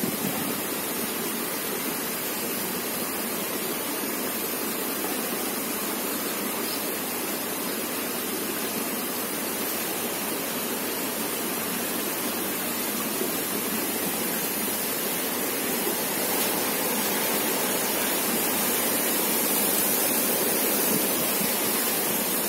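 Steady, even rushing hiss of outdoor ambience with no distinct events, growing slightly louder over the last third.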